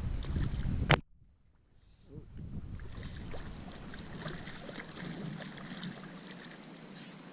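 Wind rumble on the microphone and water around a small boat, cut by a sharp knock about a second in. Then it goes suddenly very quiet, and light splashing and small ticks of water come back, with a short hiss near the end.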